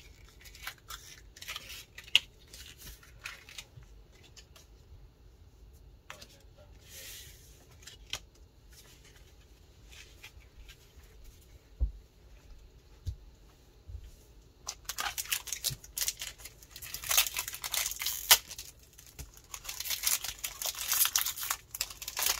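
Foil wrapper of a Pokémon TCG booster pack being torn open and crinkled, a dense rustling and tearing that starts about two-thirds of the way in. Before that, only scattered light clicks and taps.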